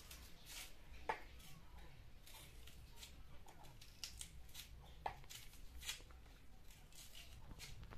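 Faint, irregular crisp cuts of a knife slicing an onion.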